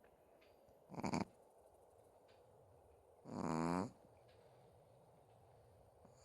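Chihuahua snoring in its sleep: a short snore about a second in, then a longer, pitched snore about three seconds in, with the next one starting just at the end.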